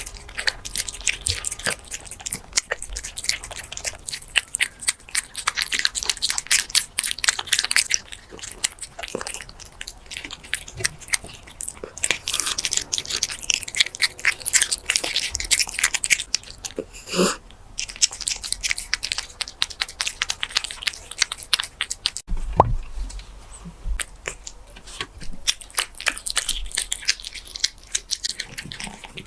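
Close-up of a silver shaded British shorthair cat chewing and crunching food, a dense run of crisp wet crackles and bites, with a short rising squeak around the middle.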